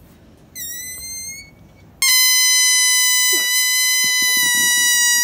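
Rubber balloon squealing as air is let out through its stretched neck: a short rising squeal about half a second in, then a long, loud, steady squeal from two seconds in.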